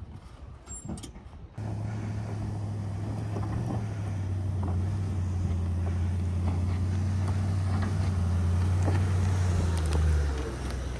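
Off-road SUV's engine running steadily, cutting in abruptly about a second and a half in; near the end the engine note drops in pitch and eases off.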